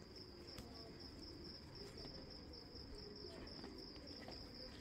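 Crickets chirping steadily: a faint, pulsing high trill, with a few soft clicks now and then.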